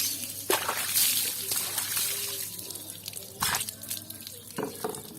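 Water splashing and dripping off a motorcycle engine as it is rinsed after the cleaner has loosened the crusted dirt. Several sudden splashes stand out, and the sound grows quieter toward the end.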